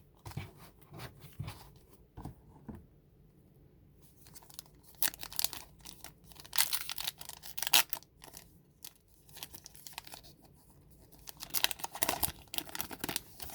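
Trading card pack wrappers being torn open and crinkled by hand, in irregular bursts of tearing and crackling.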